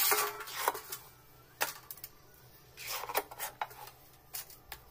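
Metal spatula scraping and knocking in an iron kadhai as thick, cooled khoya-and-sugar mixture is scooped out into a steel tray: a string of short, irregular scrapes and clacks.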